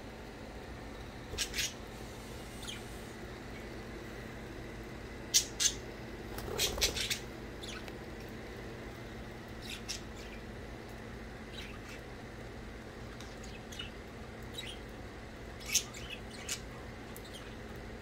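Budgerigars chirping: short, sharp, high calls scattered every second or two, with a small cluster of calls a little after five seconds in.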